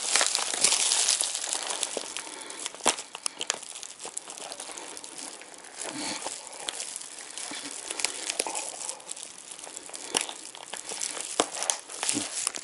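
Foil-faced bubble-wrap insulation sheet being handled and wrapped, crinkling and rustling with many irregular sharp crackles.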